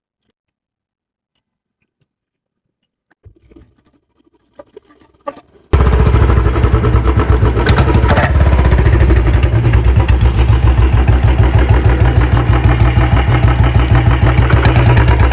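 Royal Enfield Bullet 350's UCE single-cylinder engine, breathing through a C-band pipe and short bottle silencer, fired up after a few faint clicks. It catches suddenly about six seconds in and settles into a loud, even thumping idle.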